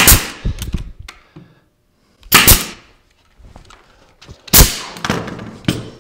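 18-gauge pneumatic brad nailer firing three times, about two seconds apart, driving brads into a cabinet panel. Each shot is a sharp crack followed by a brief hiss, with lighter clicks and knocks of the tool being handled in between.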